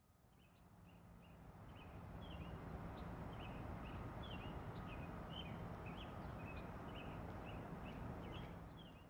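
Outdoor ambience fading in and back out: a small bird chirping in short repeated notes over a steady low background rumble.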